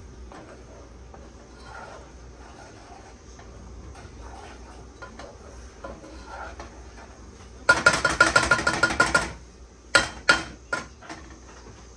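A spoon stirring the garlic butter sauce in a pot, scraping and clinking against the metal. Past the middle comes a burst of rapid ringing clinks lasting about a second and a half, then three single sharp clinks.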